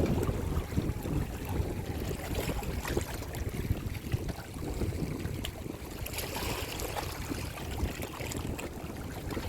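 Wind buffeting the microphone with a fluctuating low rumble, over the wash of small waves on the shore.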